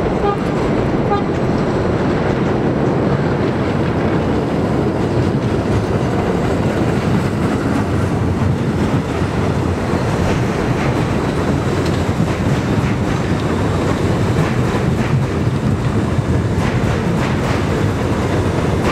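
Budd-built R32 New York City Subway train passing close by, its steel wheels running on the rails in a loud, steady rumble.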